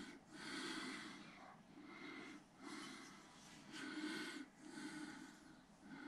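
Quiet breathing through the nose close to the microphone, in soft swells about once a second.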